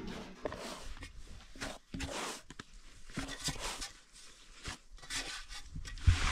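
Hands kneading a large mass of bread dough in a metal basin: irregular soft squishing, pressing and rubbing sounds. There is a low thump near the end.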